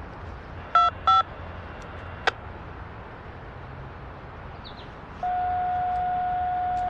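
Railroad radio scanner tones: two short beeps about a third of a second apart, a click, then one steady single-pitch tone held for about a second and a half that cuts off sharply, like the touch-tone signalling used on railroad radio channels.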